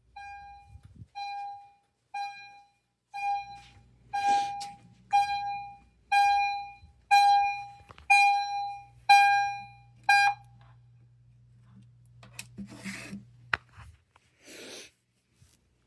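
EST Genesis fire alarm chimes sounding a single-note chime about once a second, each tone struck and then fading away. The chimes get louder a few seconds in and stop about ten seconds in, followed by a few clicks and rustling.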